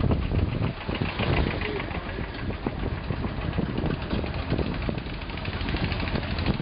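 Engine of a small vehicle running, heard from on board as it moves along a road, with an uneven knocking rattle and road noise.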